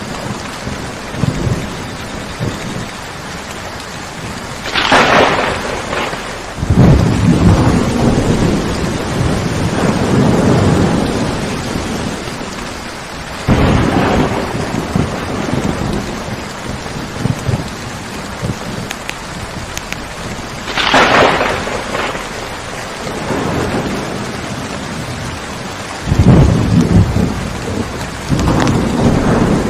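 Steady rain with a thunderstorm: three sharp thunder cracks roughly eight seconds apart, and long low rumbles of thunder after the first crack and again near the end.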